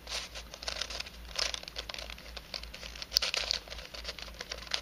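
Pieces of a 3D-printed nylon twisty puzzle, an unbandaged Helicopter Cube, clicking and scraping against each other as its faces are turned by hand, in a few short bursts.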